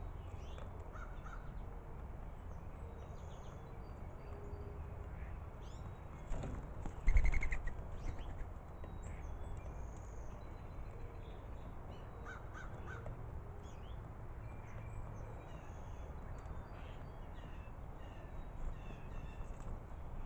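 Starlings and doves calling, with scattered short chirps and whistles over a steady low hum. A loud cluster of calls comes about seven seconds in, and a few short calls follow near thirteen seconds.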